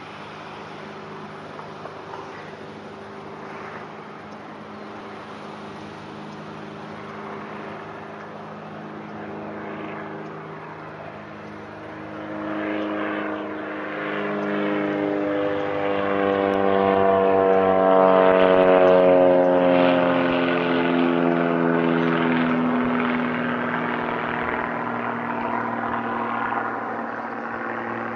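A propeller airplane flying over: its engine and propeller drone grows louder to a peak about two-thirds of the way in. The tones then fall in pitch as it passes and it recedes.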